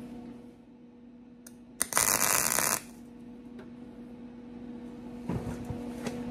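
A MIG welder arc crackling in one short burst of about a second, a tack weld on a fender nut in sheet steel. The wire is burning without shielding gas because the gas has run out. A steady low electrical hum runs underneath.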